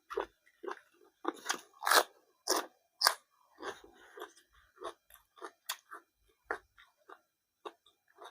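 A person chewing crunchy food close to the microphone, with irregular wet crunches a few times a second, loudest between about one and a half and three seconds in.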